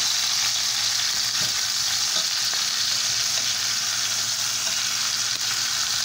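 Seasoned bone-in pork chops sizzling in hot olive oil in a skillet as they brown: a steady frying hiss.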